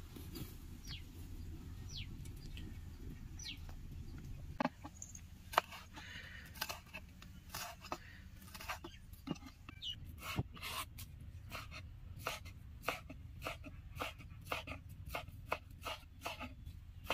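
Scattered sharp crackling pops, getting more frequent from about ten seconds in, as a pan of oil heats up for deep-frying. A few short, high, falling bird chirps sound in the first few seconds.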